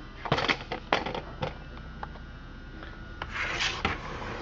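Handling noise from a chainsaw being turned over in the hands: three sharp plastic clicks and knocks in the first second and a half, then a longer rubbing scrape about three seconds in.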